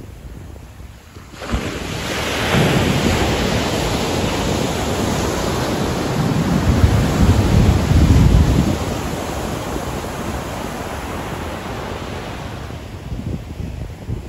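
Ocean surf breaking on a sandy beach: the rush of a wave comes in suddenly about a second and a half in, swells to its loudest with a deep rumble about halfway through, then eases into a softer wash of foam near the end.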